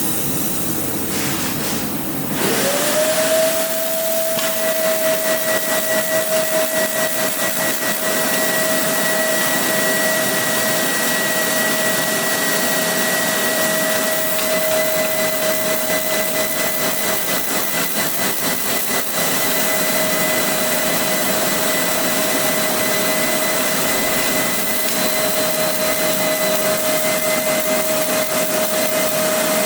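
Laser glass-drilling machine running: a steady rushing, whirring noise, with a whine that sweeps up quickly about two and a half seconds in and then holds at one steady pitch.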